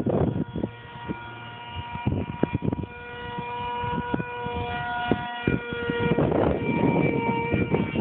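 Electric motor and propeller of a small foam RC plane whining steadily in flight, its pitch shifting a few times with the throttle. Wind buffets the microphone at the start and again near the end.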